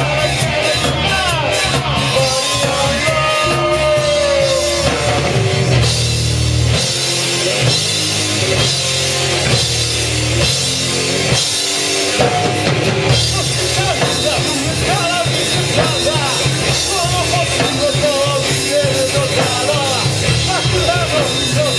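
Live rock band playing a song: drum kit, bass and electric guitar, with a melody line that bends up and down in pitch above a steady, loud band sound.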